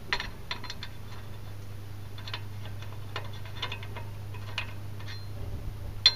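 Light, irregular metallic clicks as a new brake rotor is seated on the wheel hub and its studs, with a sharper click near the end, over a steady low hum.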